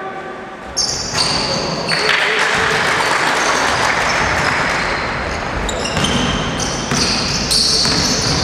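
Indoor basketball game sounds: sneakers squeaking on the court floor, the ball bouncing, and voices from players and spectators echoing in the hall.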